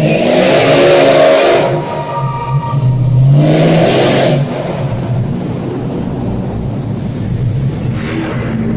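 A performance car's engine revving hard twice, each rev lasting about a second, then running lower and steadier, inside a concrete multi-storey car park.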